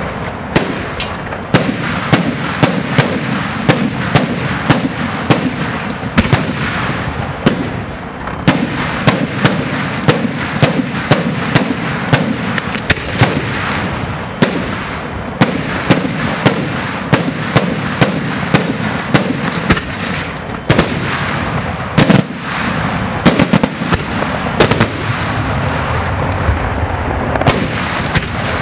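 Aerial firework shells bursting in rapid succession, with several sharp bangs a second over a continuous din of explosions. The loudest bangs come about three-quarters of the way through.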